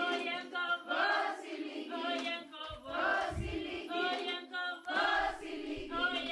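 A group of voices singing a chant-like choral phrase, repeated in a steady rhythm about once a second.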